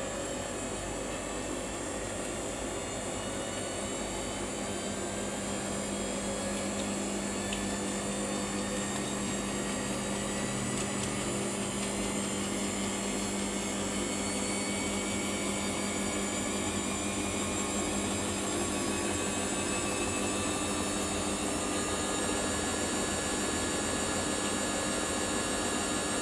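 Samsung washing machine spinning its drum up, the motor's whine rising slowly in pitch over a steady hum, typical of the final spin near the end of a 15-minute quick wash.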